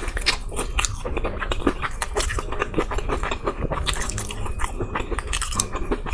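Close-miked biting and chewing of crispy fried chicken: a dense, irregular run of crunches, several a second.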